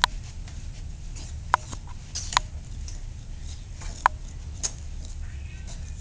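A few short, sharp squeaks about a second apart, over a steady low rumble.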